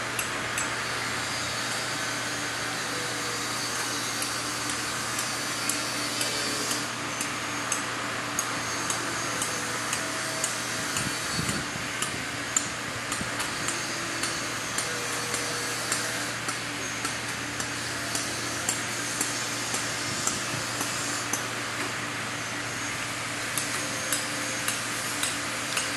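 A Galapagos giant tortoise grazing, tearing and cropping grass with its beak: a run of short, crisp snaps, about one or two a second, over a steady background hum.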